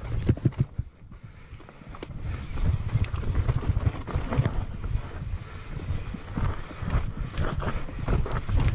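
Mountain bike descending a dirt forest trail at speed: wind buffeting the microphone over tyre noise, with the bike rattling and knocking over bumps and roots throughout. The noise drops briefly about a second in, then picks up again.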